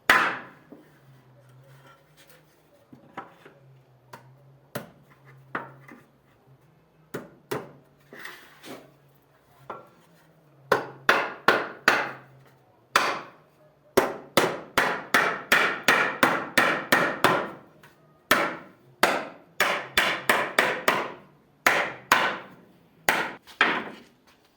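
Hammer striking wood: scattered single blows at first, then from about halfway on fast runs of strikes, about three a second, each with a short ring.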